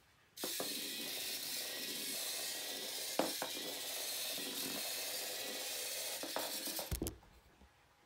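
Micro:bit MOVE mini MK2 robot's small geared servo motors whirring steadily as it drives and turns on the floor, with a few clicks along the way. The whir starts about half a second in and cuts off suddenly near the end with a knock.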